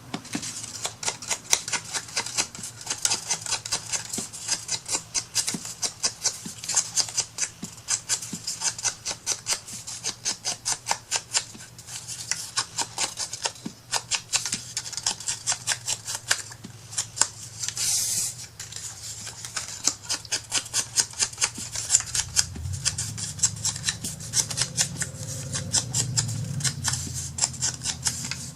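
Scissors snipping through paper in a long run of quick, repeated cuts, about two to three snips a second, with a brief rustling swish about two-thirds through. A low hum comes in near the end.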